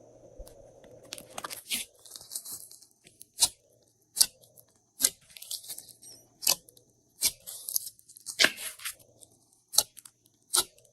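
Glossy slime being pressed and stretched by hand: sticky crackling with a string of sharp pops of trapped air, roughly one a second.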